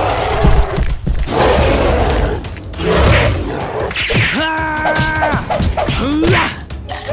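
Cartoon fight sound effects: a run of thuds and whooshes, with a long held cry about four seconds in as the ape-like monster leaps to attack.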